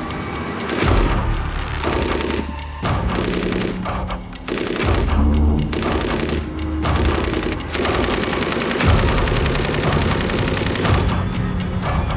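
SAR 762 MT belt-fed 7.62×51 mm NATO machine gun firing on full auto: a string of short bursts, then one long burst of about three seconds near the end.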